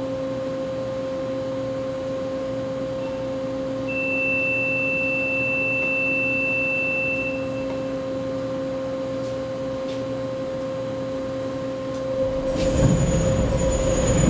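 A steady mechanical hum at a few fixed pitches, with a thin high tone for a few seconds about four seconds in. Near the end a louder rumble sets in, with a high steady squeal over it.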